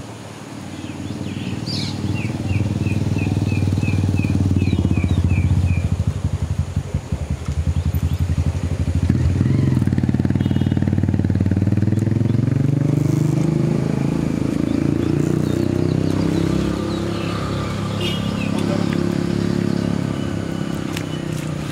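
A vehicle engine running, its pitch rising and falling over and over as it changes speed. For a few seconds near the start, a bird calls in a quick series of short notes.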